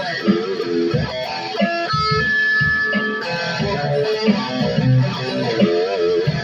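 Electric guitar with a Floyd Rose tremolo played through an amplifier: a phrase of picked notes, with one note held about two seconds in and notes wavering in pitch with vibrato around five seconds in.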